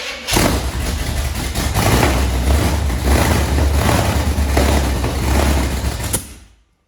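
Chevrolet 454 big-block V8 engine running loudly and unevenly, then stopping near the end.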